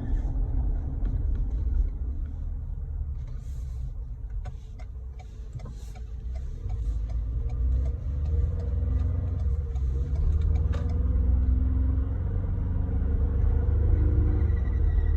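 2020 Ford Ranger's 10R80 ten-speed automatic transmission whining over a steady low vehicle rumble. The whine rises in pitch from about halfway through. The owner takes it for an abnormal transmission whine.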